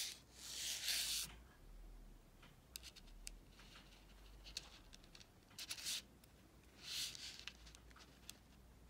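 Faint handling sounds of fingers working a fine metal necklace chain: a few short soft swishes of rubbing and sliding, with scattered light clicks of the chain and clasp.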